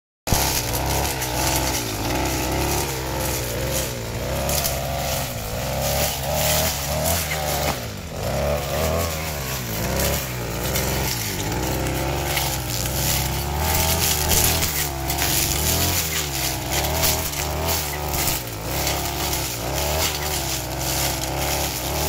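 Backpack brush cutter engine running throughout as grass is cut, its revs wavering up and down, with the rough snoring sound ('ngorok') whose cause the owner is asking about.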